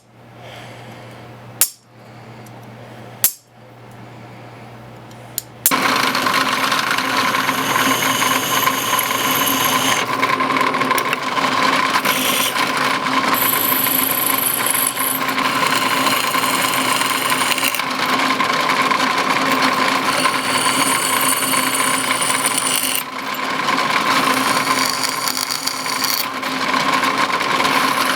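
A few sharp clicks over a low hum. Then, about six seconds in, a power tool starts up and runs loudly and steadily with a noisy, grinding-type sound.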